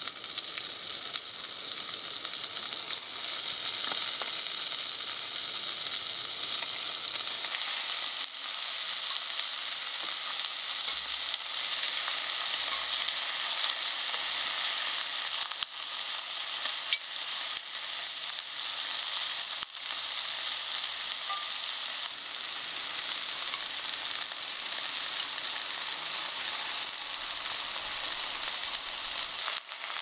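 Food sizzling as it fries in a pan: a steady hiss that grows louder about eight seconds in and holds.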